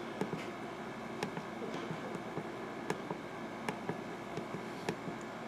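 NOAA weather radio receiver's steady hiss of dead air between announcements, broken by sharp static clicks every half second to a second.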